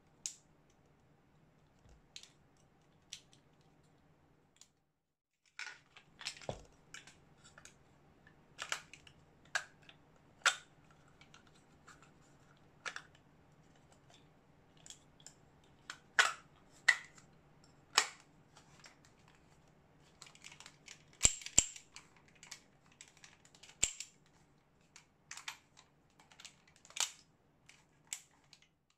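Irregular clicks and knocks of a Wingun 708 CO2 revolver's grip and metal frame being handled and the grip pressed back into place, some clicks sharp and loud, others faint.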